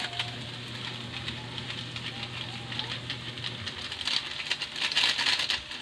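Sliced bitter gourd sizzling and crackling in hot oil in a steel wok. The crackle grows louder about four seconds in, as seasoning granules are sprinkled over it.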